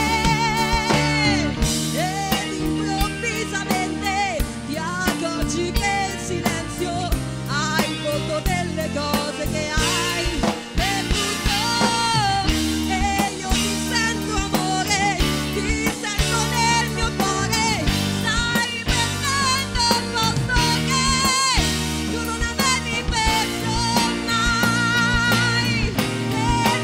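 A young female singer belting an Italian song live through a microphone, backed by a band with drums and electric guitar. Her long held notes carry a wide vibrato.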